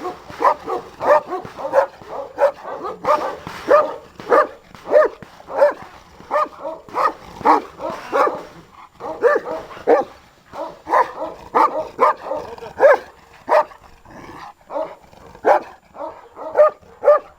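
Caucasian shepherd dogs barking over and over in a steady run, about two barks a second.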